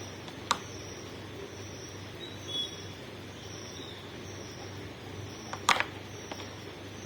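Two sharp clicks about five seconds apart from a small cable cutter working on the outer jacket of a Cat6 network cable, over a steady low hum.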